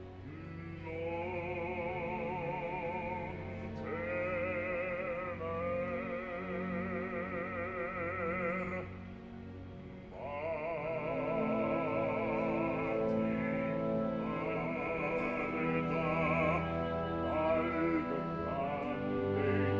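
Operatic bass voice singing long held phrases with a wide vibrato over orchestral accompaniment, with a brief break for breath about halfway through.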